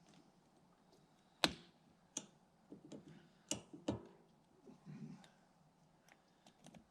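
A handful of sharp clicks and knocks at irregular intervals, the loudest about a second and a half in, with a few soft low thuds between them; no engine running.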